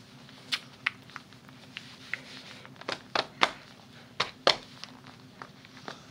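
Handling of a buckle baby carrier's straps and buckles: scattered sharp clicks and taps, with a cluster of louder ones from about three to four and a half seconds in.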